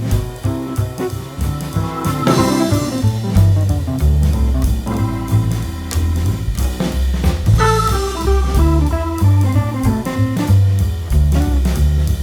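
Background music: an instrumental band piece with drum kit, bass line and guitar in a jazz-blues style, with a steady beat and a cymbal crash about two seconds in and again near the middle.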